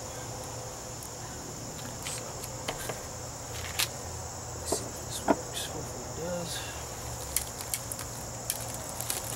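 Steady high-pitched trilling of an insect chorus, with scattered short clicks and crinkles from about two seconds in.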